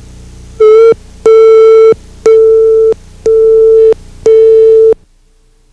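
Videotape line-up test tone played with colour bars: a loud, steady, mid-pitched beep repeated five times, about one a second, over a faint hum. It cuts off about five seconds in.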